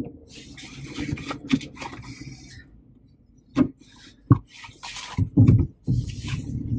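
Rustling and rubbing inside a car cabin, then several sharp knocks in the second half.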